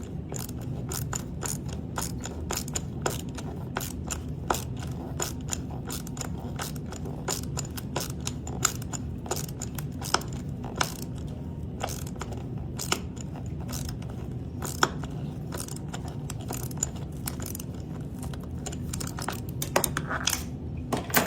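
Rapid, irregular sharp clicks and scrapes of hand tools working steel hardware, with threaded inserts being turned into the workbench, over a steady low hum.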